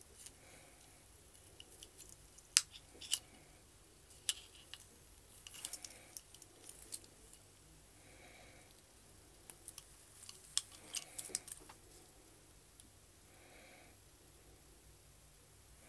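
Wooden-link watch bracelet and its steel folding clasp being handled, giving sharp little clicks and light rattles that come in scattered clusters.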